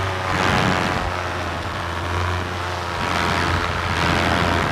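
Paramotor engine running steadily at high power during a forward launch, with a strong low hum and a whirring propeller, and two swells of rushing noise on top.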